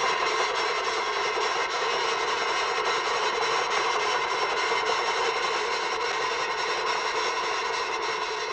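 A steady, continuous rushing noise with no clear pitch, played as a cartoon sound effect.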